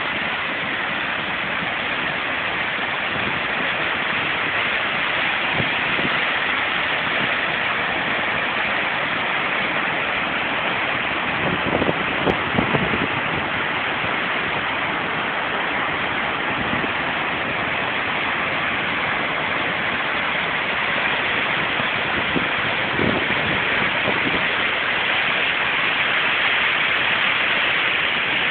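Water rushing steadily as it pours over a concrete dam spillway and tumbles down a rocky channel, a loud, even roar of white water. A few low bumps come about halfway through.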